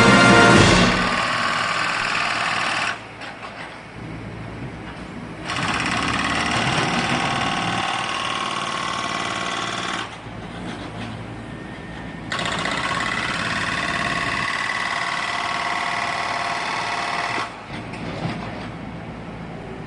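A fast-running electric power tool motor working in three spells of a few seconds each, with a steady whine, stopping between spells.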